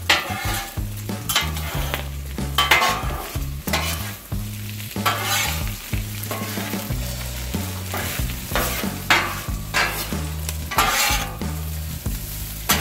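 Two metal spatulas scraping and clacking on a Blackstone griddle's steel flat top, tossing diced potatoes, bacon and chorizo together in irregular strokes, over the steady sizzle of the food frying in grease.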